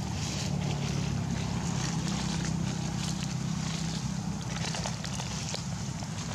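Steady low hum of a distant engine, with light crackling rustles of dry leaves.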